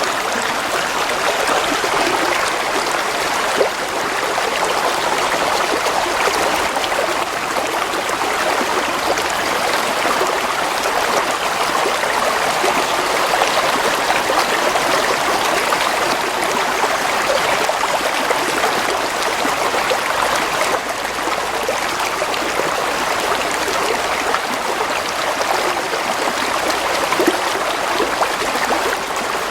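Steady gurgling of a flowing stream, water running over stones, a continuous even rush.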